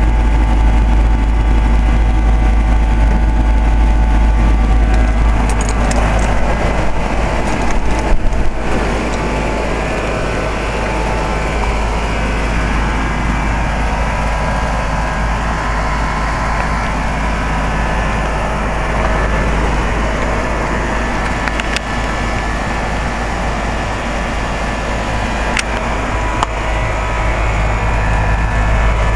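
2004 Carrier 3-ton heat pump's outdoor unit running steadily in cooling mode, its compressor humming and condenser fan blowing. A few clicks come about six to eight seconds in.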